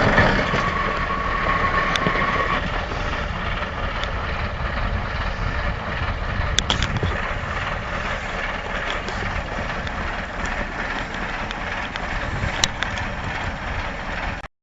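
Truck engine running steadily, with a steady high tone that stops about two and a half seconds in and a few sharp clicks.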